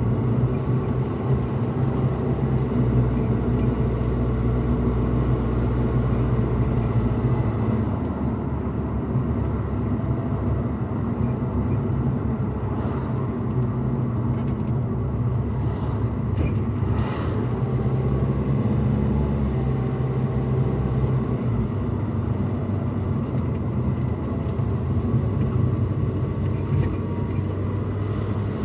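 Steady cabin noise inside a moving pickup truck: engine drone and tyre and road rumble, with the engine note shifting a couple of times.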